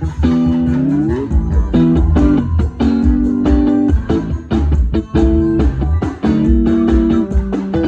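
A band playing: guitar over bass and a steady drum beat, with a note sliding upward about a second in.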